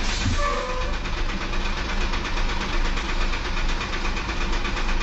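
Heavy truck's diesel engine idling steadily, heard through the dashcam inside the stopped truck's cab.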